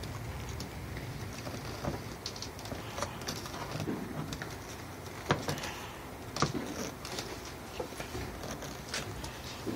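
Scattered light clicks and knocks of a plastic side-mirror housing being handled and fitted against a car door, over a steady background hiss.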